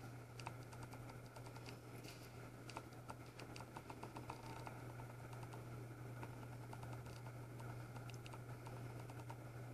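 Faint, irregular clicks and taps of footsteps on a ceramic tile floor, over a steady low hum.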